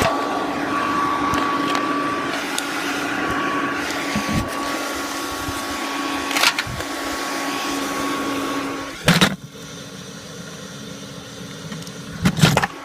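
Hairdryer blowing air into a charcoal furnace: a steady whirring hum with a thin whine, broken by a few sharp clinks of a steel poker against the cans. About nine seconds in the blowing drops much quieter.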